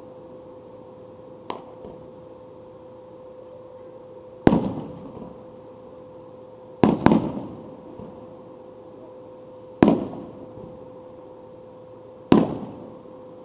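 Professional aerial firework shells bursting overhead: a faint bang about a second and a half in, then five loud bangs, two of them close together near the middle, each trailing off over about a second. A faint steady tone runs underneath.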